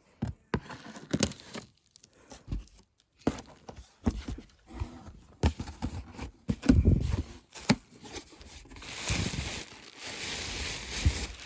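Packing paper crumpling and tearing by hand, with irregular handling knocks, as a box is unpacked.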